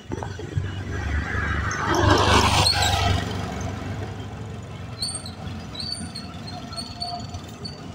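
A motor scooter passes close by, its engine and tyre noise swelling to a peak about two and a half seconds in and then fading as it rides away. Short high chirps repeat through the second half.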